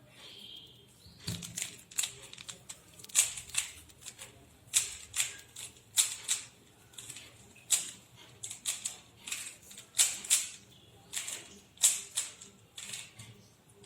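Rubik's Cube being turned fast by hand during a speedsolve: quick, irregular plastic clicks and clacks as the layers snap round, several a second.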